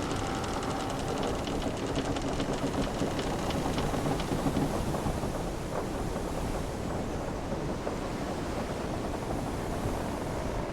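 Wooden sailing ship's timbers creaking over a steady wash of sea and wind, with faint drawn-out creaks and small ticks in the first half.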